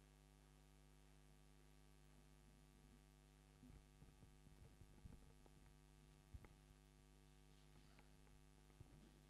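Near silence: a faint, steady electrical mains hum, with a few faint scattered clicks in the second half.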